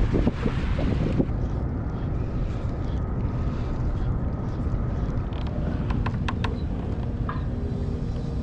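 Wind buffeting the microphone with a steady low rumble, over water splashing in the first second or so. A few sharp clicks come near the end.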